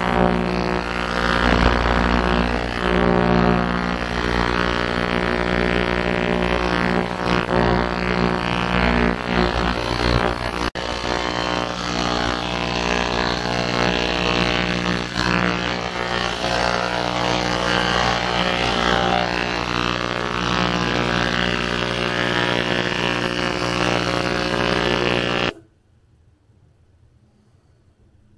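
GERCY ultrasonic jewelry cleaner running with water in its tank: a steady buzzing drone with a hiss over it. It cuts off suddenly a few seconds before the end.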